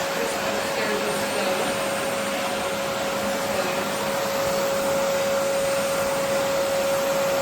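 Vacuum cleaner running steadily: a constant rush of air with a steady whining tone from the motor.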